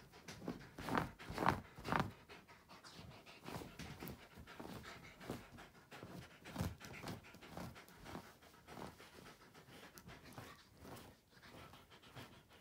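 Wolf dog panting while it digs and tugs at the bed covers, with fabric rustling. The strokes are loudest about one to two seconds in.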